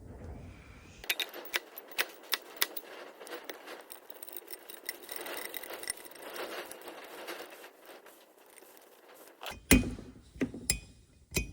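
Small metal parts and tools clinking, rattling and scraping as turbocharger parts are handled during assembly, with a few heavier knocks near the end.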